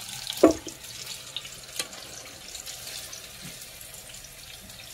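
Chicken drumsticks deep-frying in hot oil, sizzling and crackling steadily. There is a sharp knock about half a second in and a smaller click near two seconds.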